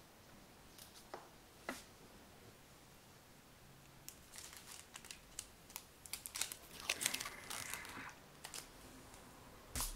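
Thin clear protective plastic film being peeled off an M1 iMac's aluminium body, crinkling and crackling. After a few soft isolated clicks, the crackling gets busy about four seconds in and is loudest about seven seconds in.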